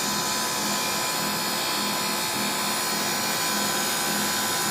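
Polyurethane gasket dispensing machine running: a steady mechanical drone with a high-pitched whine made of several fixed tones, and a faint regular pulse underneath.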